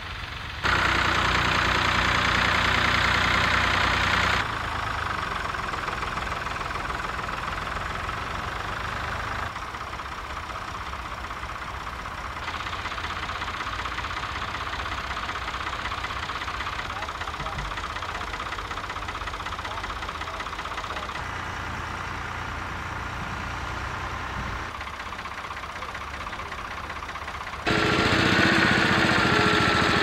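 Tractor engines running under ploughing load, the sound jumping in level and tone at each edit cut. The loudest stretches are at the start and near the end; near the end a small crawler tractor's engine runs with a slightly wavering pitch.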